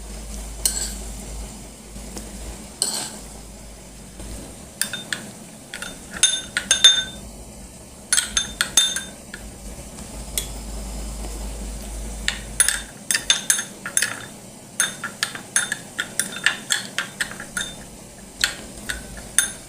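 A spoon stirring tomato-chili achar in a bowl, clinking and scraping against the bowl in irregular taps. The taps are scattered at first and come thick and fast in the second half.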